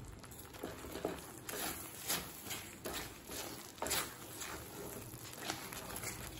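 A spatula stirring and folding thick, sticky bread halwa around a kadai, making soft, irregular scrapes and squelches.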